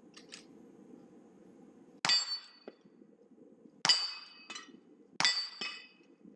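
Three rifle shots at steel targets, about two, four and five seconds in. Each is followed by the ringing of struck steel plates and a smaller metallic clank about half a second later.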